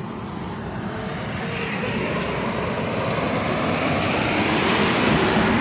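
Motor vehicle engine drone that grows steadily louder.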